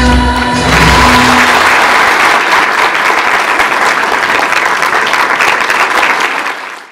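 The last held notes of a song end, and an audience's applause breaks out under a second in, going on steadily before fading out near the end.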